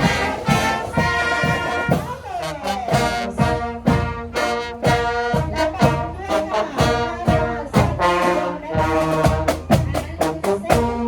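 Brass-led music, trumpets and trombones playing over a steady drum beat.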